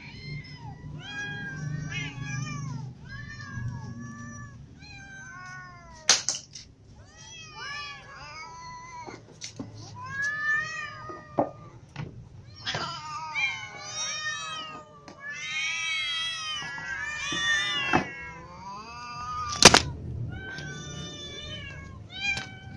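Several hungry cats and kittens meowing over and over, begging for food, many calls overlapping at once in the middle stretch. A sharp knock about six seconds in, and a louder one, the loudest sound, about three seconds before the end.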